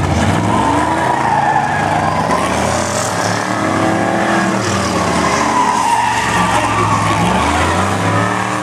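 A car doing a burnout: the engine is held high in the revs, wavering up and down, while the spinning rear tyres squeal.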